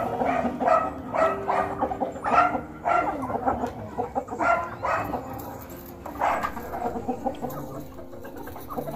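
A flock of hens and roosters clucking over scattered feed, with many short calls overlapping throughout.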